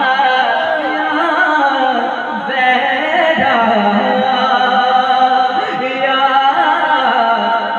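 A man singing a naat, an Islamic devotional song, unaccompanied, in long held notes that bend and waver in pitch.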